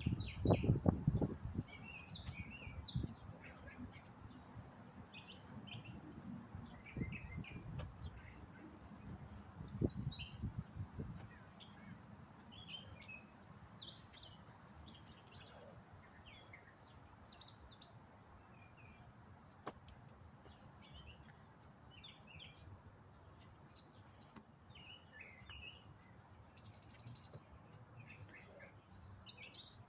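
Small birds chirping and twittering throughout. Low wind rumble on the microphone with a few thumps is loudest over the first ten seconds or so, then eases off.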